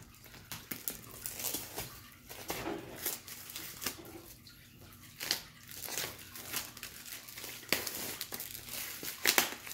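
Clear plastic shrink-wrap crinkling and tearing as it is pulled off folded board-game boards, a run of irregular sharp crackles.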